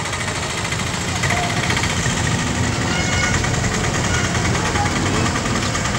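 A boat's engine running steadily: a low rumble with a fast, even chugging.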